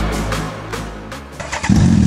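Electronic music fades out, then about one and a half seconds in a 2009 Suzuki Hayabusa's inline-four engine starts up and runs loud and steady.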